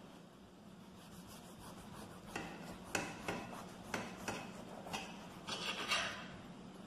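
A knife sawing back and forth through the crust of a baked loaf of bread, a run of rasping strokes that begins about two seconds in and is loudest near the end.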